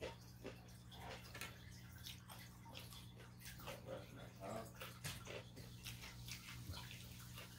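Faint chewing and mouth clicks from a person eating raw cucumber slices, with many short irregular clicks and smacks.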